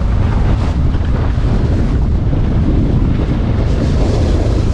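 Wind buffeting the microphone: a steady, loud low rushing noise.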